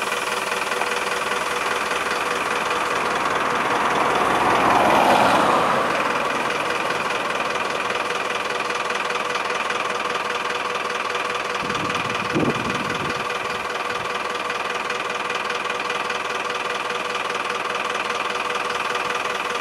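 Fire engine's diesel engine idling steadily while parked with its blue lights on. About five seconds in the sound swells louder for a second or two, and a short knock comes about twelve seconds in.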